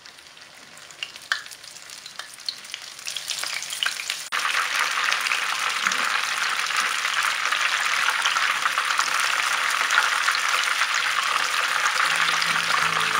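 Dynamite lumpia, chili peppers wrapped in spring-roll wrappers, deep-frying in hot oil: a dense, steady sizzle with crackles. It is quieter with scattered pops at first, then much louder and thicker from about four seconds in.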